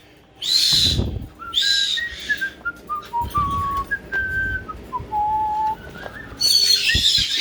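Caique parrot giving harsh screeches, twice early on and again near the end. In between comes a run of clear whistled notes at stepped pitches, with a few low knocks.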